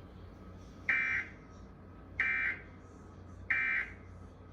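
Emergency Alert System end-of-message (EOM) signal: three short, identical bursts of buzzy SAME digital data tones, about 1.3 seconds apart, marking the close of the alert.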